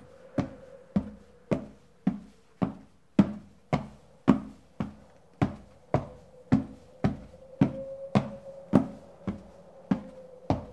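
Slow, even footsteps, about two a second, each a sharp knock with a short thud, over a faint steady drone.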